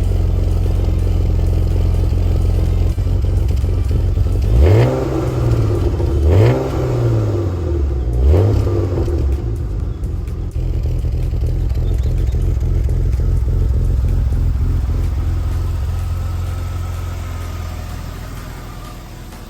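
BMW 328i's straight-six engine running steadily, with the throttle blipped three times about five, six and a half, and eight and a half seconds in, each rev rising and falling back. It then fades away near the end.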